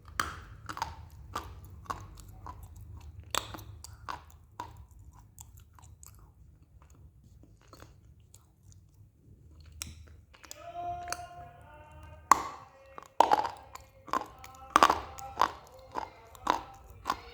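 Hard lumps of multani mitti (fuller's earth clay) being bitten and chewed close to the microphone, crunching. The crunches are scattered at first, ease off in the middle, then come loud and regular, about two a second, near the end.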